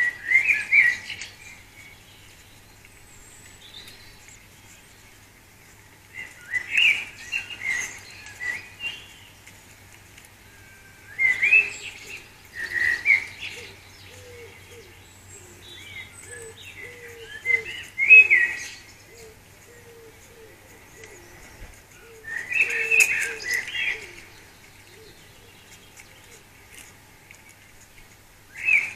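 A songbird singing in phrases of about two seconds, with a pause of a few seconds between each phrase.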